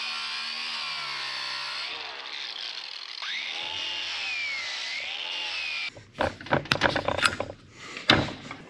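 DeWalt angle grinder running a wire wheel against rusty steel on a sprocket and shaft, brushing off scaly rust; the motor's whine dips and rises as it is pressed into the work. The grinder cuts off about six seconds in, followed by a run of sharp knocks and clatter as the part is handled.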